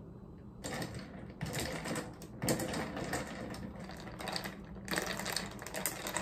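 Milk poured over ice into a large glass mug, then the drink stirred with a spoon. The ice and spoon clink rapidly against the glass, starting about a second in.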